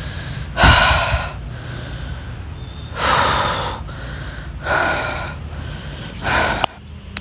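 A man breathing hard: four loud gasping breaths, about a second and a half apart.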